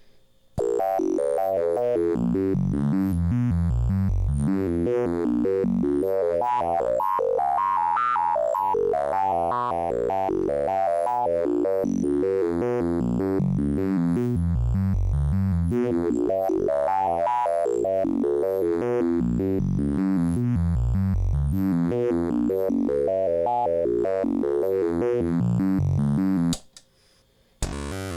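Homemade wavetable oscillator, built from a flash memory chip, a counter, a voltage-controlled oscillator and a DAC with no CPU, playing a low sustained tone. Its timbre sweeps brighter and darker over several seconds as it scans through the wavetable. The sound cuts out for about a second near the end, then starts again.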